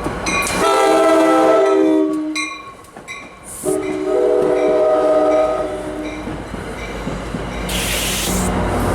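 Locomotive air horn sounding two long blasts, each a chord of several notes, over a bell ringing steadily. A short burst of hiss comes near the end.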